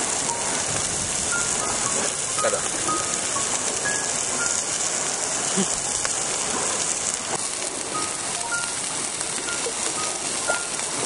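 A steady hiss of outdoor noise, with short faint chirps now and then.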